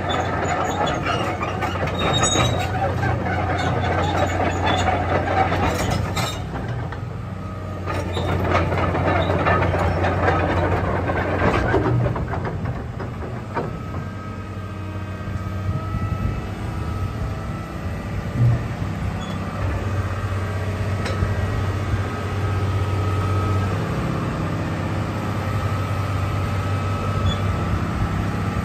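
Komatsu PC600LC-8 excavator's diesel engine running with a steady low hum. Squealing and rattling from the machine are mixed in over roughly the first twelve seconds, then it settles to a smoother steady run.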